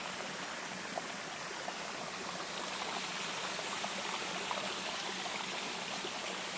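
Small waterfall splashing and running steadily, with small droplet plinks scattered through the rush of water.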